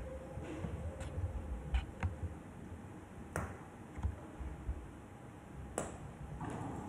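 Several sharp, scattered clicks and knocks, about five over a few seconds, the loudest near the end, over a low uneven rumble.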